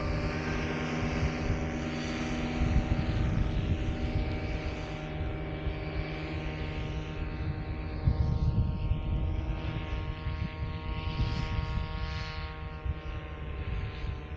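Atom 80 two-stroke paramotor engine running with its propeller, holding a steady pitch and sagging slightly near the end, with wind buffeting the microphone.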